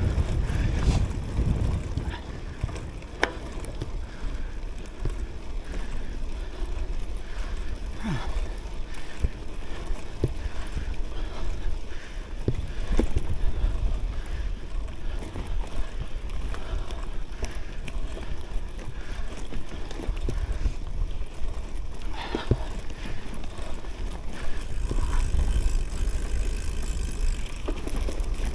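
Tyres of a CUBE Cross Race Pro gravel bike rolling over gravel and sandy dirt track, with a steady rumble of wind on the microphone and occasional sharp clicks and rattles from stones and the bike.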